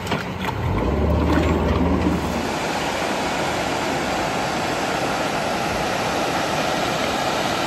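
A boat's outboard motor running low and steady as the boat is driven onto its trailer, then, from about two and a half seconds in, the steady rush of water gushing from a dam's outlet into the spillway.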